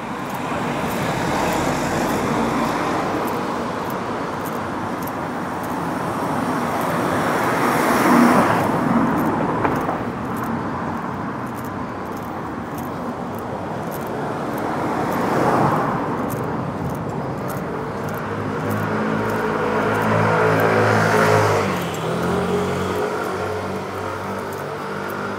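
City street traffic: vehicles passing one after another, each swelling and fading, the loudest about a third of the way in. Near the end a vehicle engine's steady hum joins, its pitch dropping briefly.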